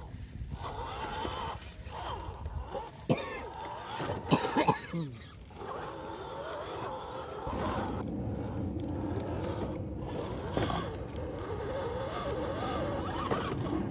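1/10-scale RC rock crawler's electric motor and geared drivetrain whining, rising and falling with the throttle as it crawls over wet rock. There are a few sharp knocks of tyres or chassis on stone about three to five seconds in.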